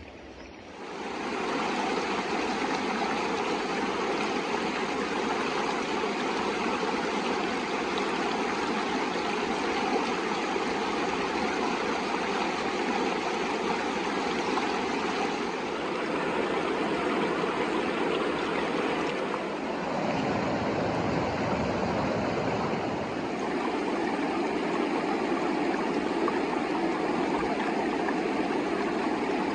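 Himalayan river water rushing steadily, an even loud wash of flowing water that comes in about a second in.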